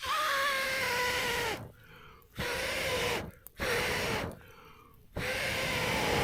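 A person breathing out hard four times in a steady rhythm, each long breath carrying a whistling tone.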